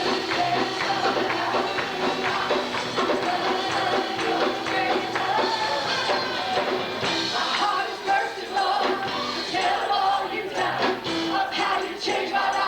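Live church worship music: a band playing with singers, with a steady beat of percussion strokes.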